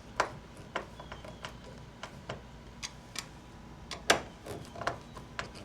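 Irregular sharp clicks and taps of a hand tool tightening down the mounting screw of an anchor trolley pulley on a plastic kayak hull, with one louder click about four seconds in.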